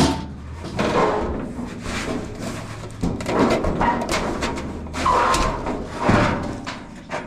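Sheet-metal dryer parts being handled during teardown: a sharp clank at the start, then irregular scraping and clattering knocks about once a second, some with a brief metallic ring.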